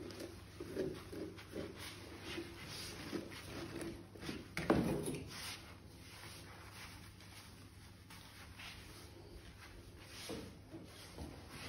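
A grooming comb drawn through a dog's curly, woolly coat: faint, irregular rubbing strokes, with one louder knock about five seconds in.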